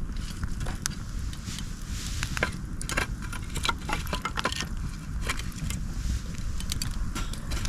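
Wood campfire crackling, with many irregular sharp pops and snaps over a steady low rumble of burning.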